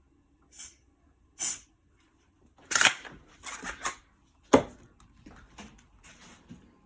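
Canned smoke-detector test aerosol (Smoke Sabre) sprayed in short hissing puffs at a System Sensor 2151 smoke detector, with handling noise and one sharp knock about four and a half seconds in.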